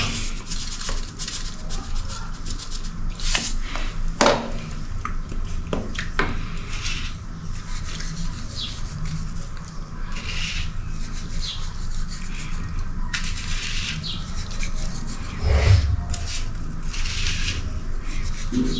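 Salt being handled from a small plastic tub and sprinkled by hand into a pot of soup: irregular light rubbing and scratching of fingers and plastic. A steady low hum runs underneath.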